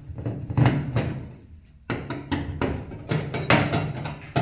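Irregular clicks and knocks of a screwdriver and a metal cover plate being handled as the plate is unscrewed and taken off a vacuum ironing table, some knocks with a short low ring.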